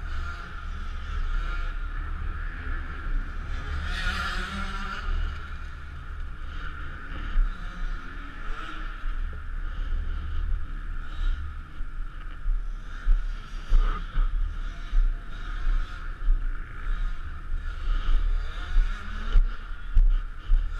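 Motocross motorcycle engines running and revving, over a heavy low rumble. In the second half there are regular thumps.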